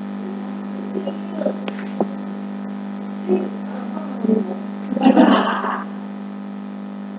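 Steady electrical hum with a few faint clicks and several short louder noises, the loudest about five seconds in.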